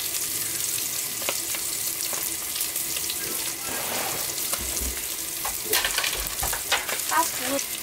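Eggs and sausage sizzling in camp pans on a wood stove, a steady frying hiss, with a spatula clicking and scraping against the pan now and then.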